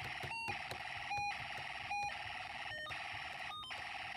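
Small Snap Circuits speaker driven by the kit's music IC, giving a steady harsh electronic buzz broken about every 0.8 seconds by a short clean beep. It keeps switching back and forth between two tones in a regular, repeating cycle.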